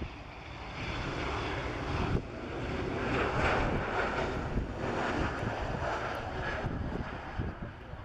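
Jet noise from an Embraer E190's twin General Electric CF34 turbofans as the airliner passes close on landing, a rushing roar that swells to its loudest about three to four seconds in and then eases off as the jet rolls away down the runway.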